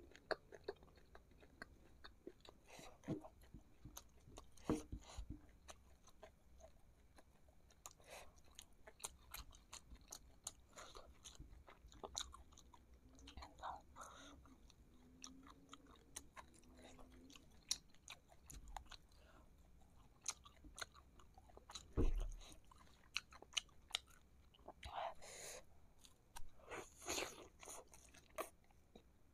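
Mouth sounds of someone eating fried meatballs in sauce: chewing and biting, with many scattered wet clicks and smacks. One dull thump, the loudest sound, comes about two-thirds of the way through.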